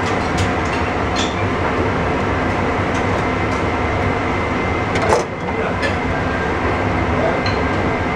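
Steady mechanical drone with a low hum, the background running of commercial kitchen machinery. A few light clicks and one sharper knock about five seconds in.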